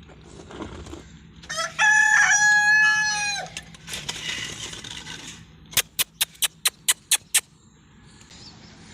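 A rooster crowing once, a loud drawn-out crow of about two seconds that drops off at the end. Later comes a quick run of eight sharp clicks, about four a second.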